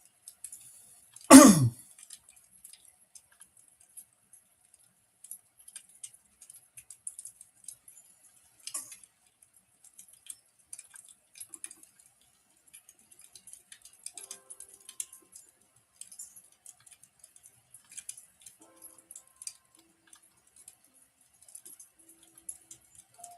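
Wood fire crackling: scattered small, irregular pops and ticks. About a second and a half in comes one much louder, short burst.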